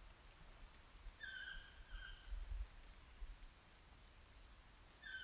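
Faint tropical-forest ambience: an insect holds a steady high-pitched trill throughout, and about a second in a bird gives one short call of two falling notes. A low rumble runs underneath.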